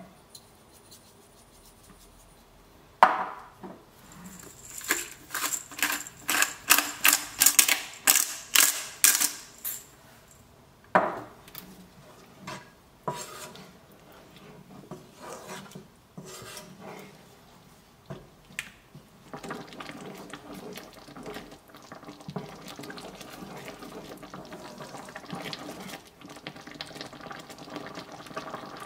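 A pepper mill grinding over the pan in a quick run of crisp crunching clicks, then a wooden spoon stirring and scraping thick cream sauce in a nonstick frying pan, with a few knocks of the spoon against the pan. A soft steady simmer comes in near the end.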